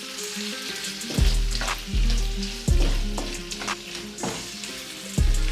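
Chopped carrots and bell peppers in tomato sauce sizzling in a pot over low heat while a spoon stirs them, with scattered scraping clicks. Background music with held chords and a few deep bass notes plays over it.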